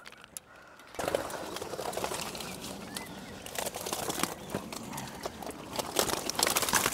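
Landed fish flapping and splashing in a wet mesh weigh sling as the weighed catch is tipped out: a dense run of irregular wet slaps and splashes that starts suddenly about a second in and is loudest near the end.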